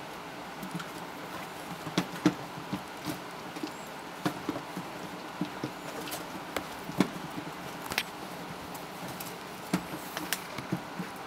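Irregular light taps, scuffles and clicks of small puppy paws and claws moving about on puppy pads, with a few sharper clicks among them.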